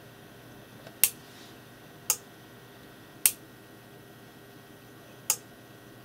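Relays clicking over inside a Vitals Rs 100k relay-type automatic voltage regulator as it switches its transformer taps: four sharp clicks about a second apart, the last after a longer gap.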